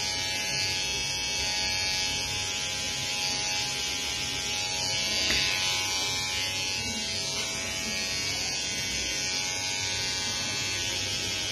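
Electric hair clipper running with a steady buzz.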